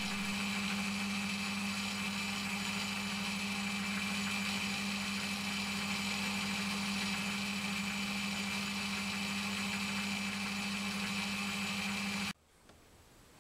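Metal lathe running, turning a large metal flange: a steady machine hum with a higher whine over it. It stops abruptly about twelve seconds in.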